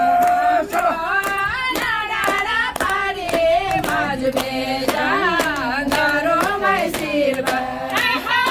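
A woman singing into a microphone, holding long, gliding notes, while a group claps along in a steady rhythm of about three claps a second.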